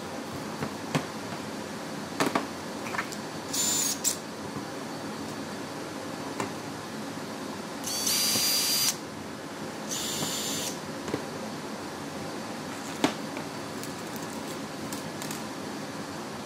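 Cordless drill running in three short bursts, each a high whine lasting under a second, boring pilot holes into a wooden beehive frame's end bar. A few sharp knocks come between the bursts.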